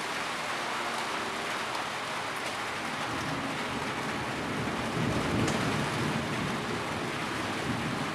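Heavy rain falling steadily in an even hiss. A low rumble swells up about three seconds in, peaks in the middle and fades away near the end.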